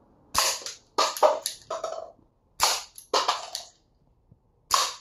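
Toy soft-bullet revolver, a Smith & Wesson M327 replica, firing with sharp pops. Paper cups clatter as they are knocked over onto a wooden table, in a quick run of light knocks after each shot.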